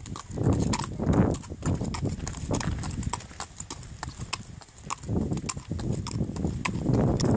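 Horse's hooves clip-clopping on a gravel track in a steady run of strikes.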